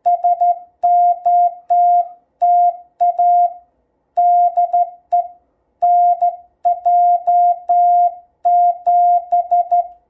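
Vectronics VEC-254 code practice oscillator sounding a steady beep, keyed on and off by a straight key in Morse code dots and dashes, with a click at each press of the key.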